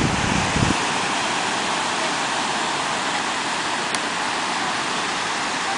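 Ocean surf breaking and washing onto a sandy beach, a steady hiss of waves. A low rumble stops under a second in.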